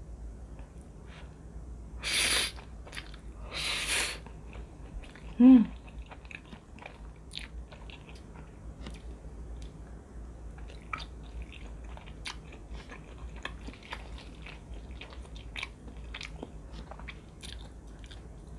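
Rosé Shin Ramyun noodles slurped twice in quick succession, then close-miked chewing with many small wet mouth clicks. About five seconds in there is a short, loud hum from the eater that drops in pitch.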